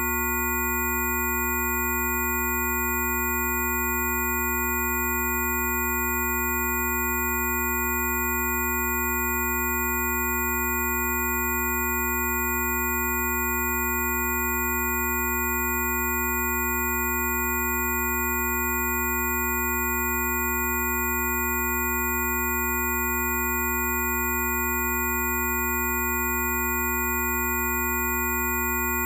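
Several electronic sine tones sounding together at once, from a low hum up to very high whistles, held perfectly steady: generated Rife frequencies.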